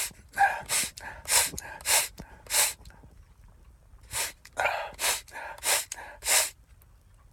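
A man's short, sharp gasping breaths in two runs of five or six, about two a second, with a pause of over a second between. They are his reaction to the nasal burn of snorted cayenne pepper, right after a pepper-induced sneeze.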